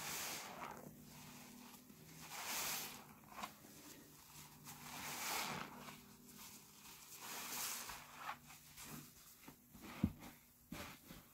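Suds-soaked sponges squeezed by gloved hands in a tub of thick Fabuloso foam: about four wet squeezes two to three seconds apart, each a swell of hissy noise. A single sharp click comes near the end.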